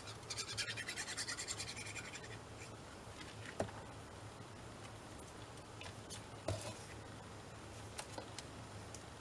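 The nozzle of a glue bottle scratching quickly back and forth over a small paper tab as glue is spread, about two and a half seconds of rapid strokes. Then a sharp tap and quieter paper handling with a couple of lighter taps as the bottle is put down and the tab is pressed onto a paper pocket.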